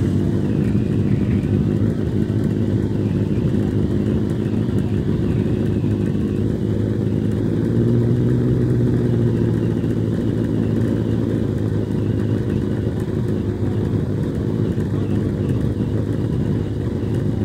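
Suzuki SV1000's V-twin engine running hard up the hill-climb course, a steady engine drone that swells slightly about halfway through.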